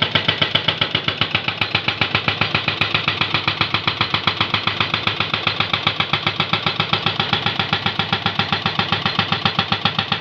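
Hydraulic breaker on a Jonyang JY623E excavator hammering steadily at about eight blows a second, breaking up a road.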